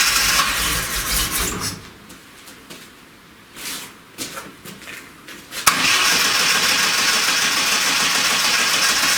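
A freshly overhauled VAZ 2106 four-cylinder carburettor engine being started on choke: the first try dies away within a couple of seconds, a few sputters follow, and about six seconds in the second try catches and the engine keeps running steadily.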